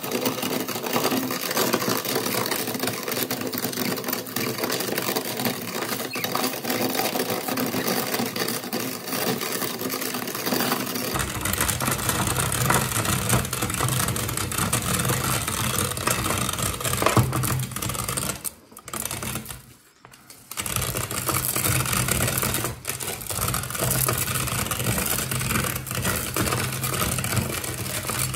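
Dry spaghetti being crunched and ground in a hand-cranked cast-iron meat grinder: a dense, continuous crackling clatter, with a short break about two-thirds of the way through.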